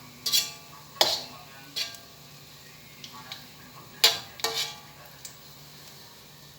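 A metal utensil clinking and knocking against a wok of hot oil, five or six sharp strikes with a brief ring, over the faint sizzle of jackfruit pieces deep-frying.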